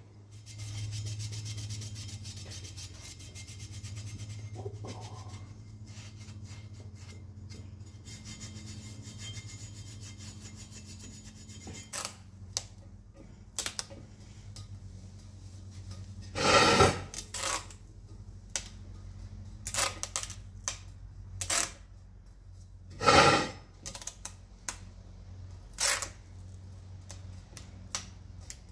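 Green painter's tape being pulled off the roll and pressed around a wheel rim: short rasping rips of tape and scattered clicks, the two loudest about halfway and about four-fifths through, over a steady low hum.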